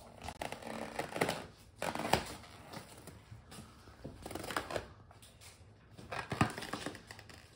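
Small hands rubbing and squeezing an inflated latex balloon: irregular scraping and squeaking rubs in several bursts.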